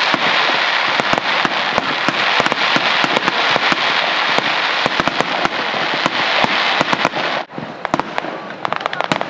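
Aerial fireworks display: a dense, continuous stream of rapid pops and crackles from many bursting shells. It drops off suddenly about seven and a half seconds in, then gives way to sparser separate bangs.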